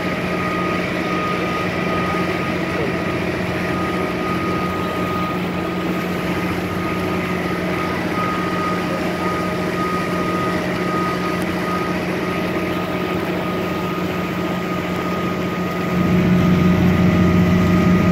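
Tour boat's engine running steadily with a constant hum, getting louder near the end.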